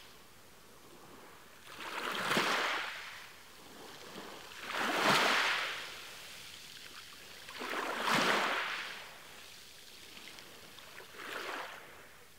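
Water waves washing in: four swells of rushing water about three seconds apart, the second and third the loudest, over a low steady wash.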